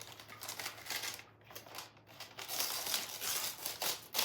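Gift wrapping paper rustling and crinkling as a present is unwrapped, the rustling heavier in the second half.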